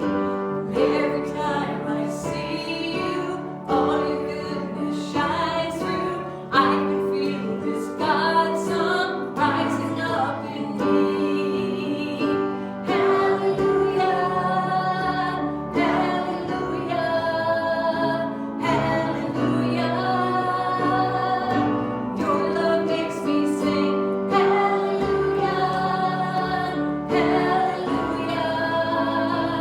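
A worship song sung by a woman's lead voice over instrumental accompaniment, the singing running on in long held lines.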